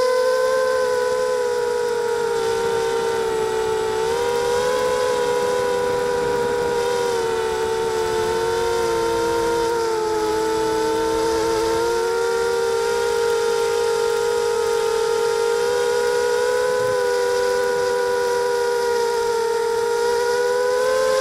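Electric motors and propellers of a small FPV drone whining steadily, heard from its onboard camera. The pitch sags a little about halfway through and then climbs back as the throttle changes.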